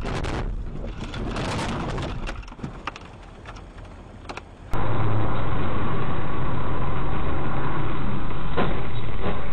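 Car and road noise heard from inside a moving vehicle through a dashcam microphone, with a few faint clicks. About five seconds in it cuts abruptly to a louder, duller dashcam recording of steady engine and road noise.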